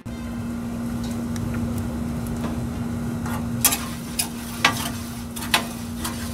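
Metal spatula scraping across the oiled flat steel top of a Blackstone griddle, with a light sizzle of hot oil and a steady low hum underneath. About four sharp scrapes and clinks come in the second half.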